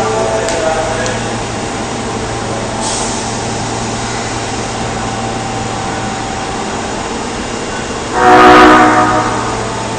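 Osaka subway 22 series train's horn sounding once, about eight seconds in, for about a second, with an abnormal tone: the horn is faulty. Before it, a steady hum from the train standing at the platform.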